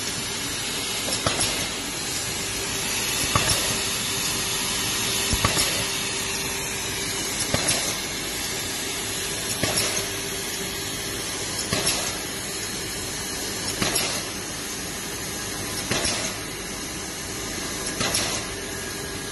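Mamata pouch bag-making machine running, a steady hiss and hum with a short clatter of its stroke about every two seconds, in an even rhythm of roughly 29 strokes a minute.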